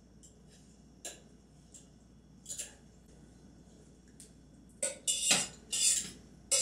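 A metal utensil clinking and scraping against a stainless steel pot as sprouts are served out of it onto a plate. A few faint clicks at first, then a run of louder clanks from about five seconds in.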